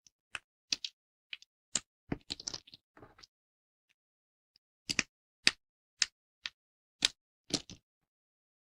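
Thin dried soap plates being broken, each one giving a sharp, dry crack. A quick run of cracks comes in the first three seconds, then after a pause six crisp snaps about half a second apart.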